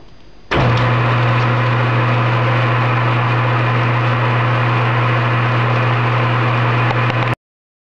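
Small metal lathe running: the motor and spindle start suddenly about half a second in and run with a steady low hum and mechanical whir, turning a 3D-printed lathe dog and an aluminium disc between centers. The sound cuts off abruptly near the end.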